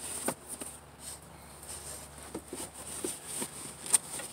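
Gear being handled and shifted in a vehicle's cargo area: scattered light knocks and rustles, with one sharp click about four seconds in.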